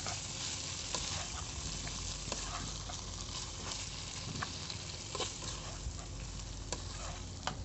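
Fusilli pasta with vegetables and sauce sizzling in a hot frying pan while a utensil stirs it, with scattered light scrapes and taps against the pan over a steady hiss.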